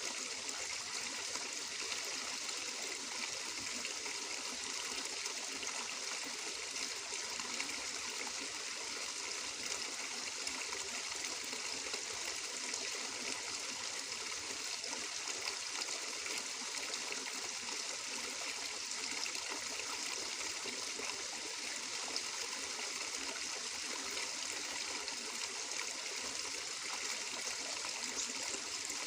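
Stream water flowing and trickling steadily, an even bright splashing hiss without change.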